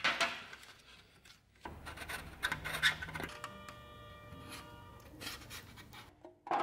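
Hands shifting a thin metal sheet and a wooden handle on the bench, then tracing around the handle with a marker on the metal, making scraping and rubbing sounds. In the middle, a steady ringing tone lasts a couple of seconds.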